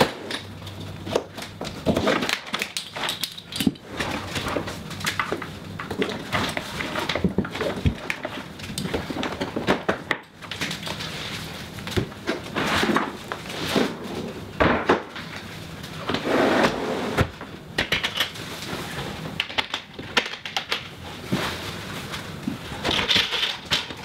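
Irregular clunks, clicks and scraping of a portable fridge being unstrapped from a fridge slide, slid out and lifted from the drawer system, then a carpeted false-floor panel being fitted.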